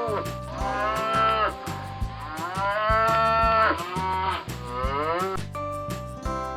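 Domestic cattle mooing: a series of long, bending moos one after another, the last ending about a second before the close, over background music with a steady beat.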